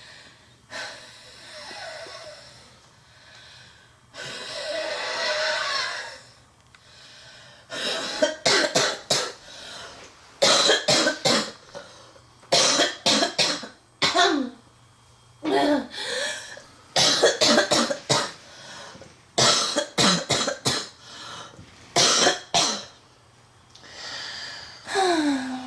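A girl coughing in repeated fits of deep, chesty coughs, two to five in quick succession each, with short pauses between. Two long, noisy breaths come first.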